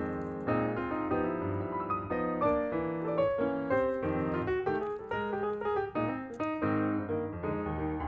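Background piano music, a run of notes struck one after another.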